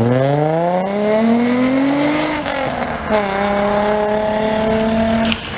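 Nissan 350Z's 3.5-litre V6 accelerating hard: the revs climb for about two seconds, drop at an upshift, then hold a steady note in the next gear.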